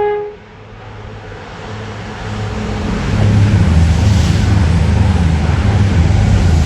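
Class 222 Meridian diesel multiple unit passing at speed: its underfloor diesel engines drone over the rush of wheels on rail, growing louder over the first three seconds and then staying loud. The last of its two-tone horn cuts off right at the start.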